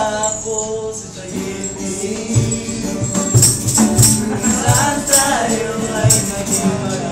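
Live acoustic performance: a man singing a melody over two acoustic guitars strumming, with a cajón (box drum) keeping a steady beat of low thumps about twice a second and crisp high slaps.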